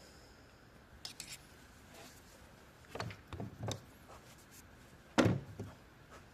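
Scattered clicks and knocks of objects being handled, with a short cluster about three seconds in and the loudest knock a little after five seconds.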